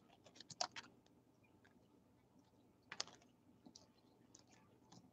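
Faint crinkles and clicks of a foil trading-card pack wrapper being torn open and the cards handled: a few light ticks in the first second and one sharper click about three seconds in, otherwise near silence.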